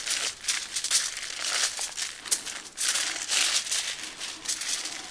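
Aluminium foil crinkling in irregular rustles as hands knead and mush seasoned ground beef on it.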